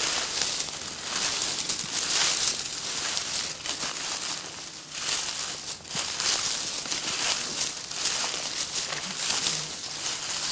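Footsteps crunching and shuffling through dry fallen leaves at a steady walking pace, a crunch roughly every second.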